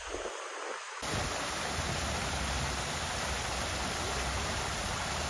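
Small waterfall pouring into a lily pond: steady rushing, splashing water that starts abruptly about a second in, after a softer hiss.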